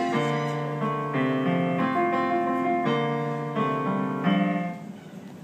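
Yamaha digital piano played in steady chords under a simple melody, each chord held about half a second to a second. The last chord dies away near the end, closing the piece.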